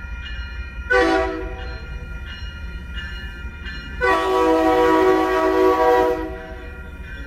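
Commuter rail train's horn, a chord of several notes, sounding one short blast about a second in and a long blast from about four seconds in to about six. Grade-crossing warning bells keep dinging in a steady quick rhythm underneath.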